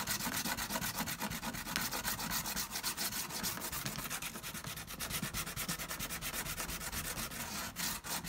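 240-grit sandpaper rubbed by hand in quick back-and-forth strokes along the edge of a leather briefcase, an even scratchy rhythm of several strokes a second. The edge is being smoothed to prepare it for edge paint.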